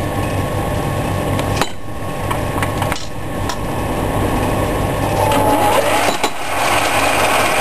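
Ward 1A capstan lathe running with a steady hum, with a few sharp metal clacks as the operator handles the work and the turret tooling. About two-thirds of the way through it grows louder and hissier as the turret tool is fed in.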